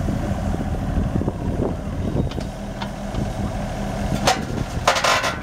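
Case CX36B compact excavator's Yanmar three-cylinder diesel engine running steadily while the upper structure swings, with scattered light knocks. About four seconds in there is a short harsh burst of noise, and a longer one about five seconds in.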